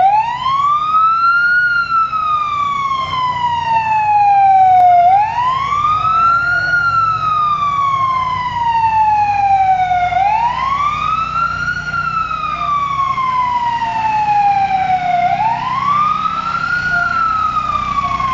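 Fire-department vehicle's siren wailing in a repeating cycle about every five seconds, each time rising quickly in pitch and then falling slowly, with a low steady hum underneath.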